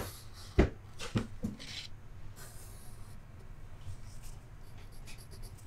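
Marker scratching across a paper worksheet on a desk, with a few sharp knocks in the first second and a half.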